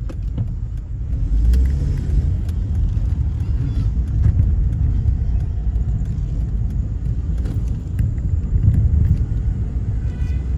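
Steady low rumble of a car's engine and tyres heard from inside the cabin while driving, growing a little louder about a second in as the car pulls away.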